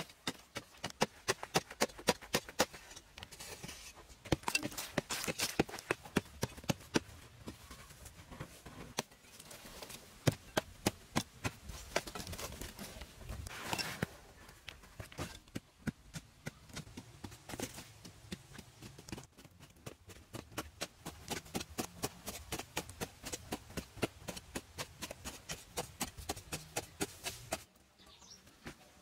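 Short-handled hand digging tools striking hard, dry, stony soil in quick, regular blows, several a second, stopping shortly before the end.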